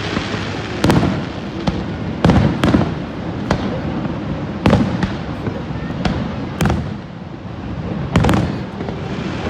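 Fireworks shells bursting overhead: about ten sharp bangs at irregular intervals, some with a short echoing tail, over a steady rush of background noise.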